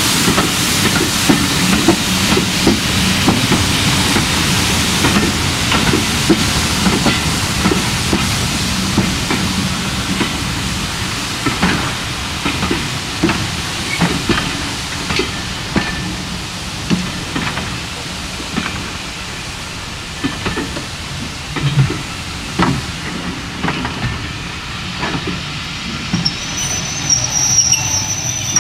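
BR Mark 1 passenger coaches rolling slowly past, their wheels clicking over the rail joints above a low rumble. A hiss heard at first fades away over the first half, and a high, thin squeal comes in near the end.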